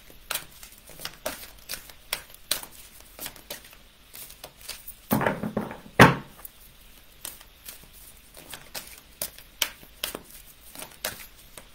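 Oracle cards being shuffled by hand: irregular soft card slaps and flicks, a few a second, with a sharper tap about six seconds in.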